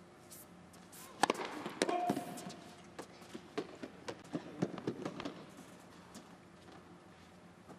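Tennis rally on an indoor hard court: sharp pops of racquet strikes on the ball and ball bounces, the loudest about a second in, then a quicker run of hits and bounces between about three and five seconds in.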